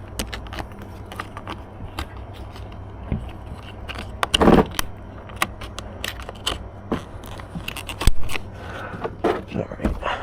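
Plastic car-door trim clips and panel parts being handled: scattered small clicks and rattles, with one louder rustle about four and a half seconds in.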